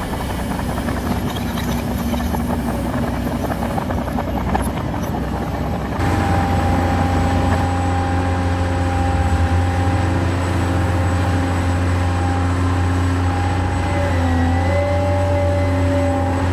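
Remote-control model excavator running, a steady low hum with whining tones that rise and fall slightly as it works. About six seconds in, the sound changes abruptly to a louder, steadier hum.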